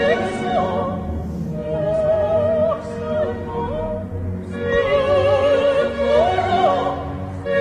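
Operatic singing with wide vibrato over orchestral accompaniment: the sound track played back from the loaded video.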